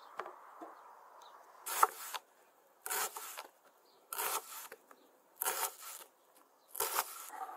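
Kitchen knife slicing through a halved white onion on a wooden cutting board: five slow, crisp cuts, evenly spaced a little over a second apart.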